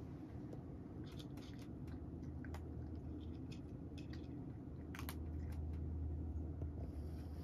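A cat crunching dry kibble from a bowl: irregular crisp crunches, with a busy patch about a second in and another about five seconds in. A low steady hum runs underneath, stronger in the second half.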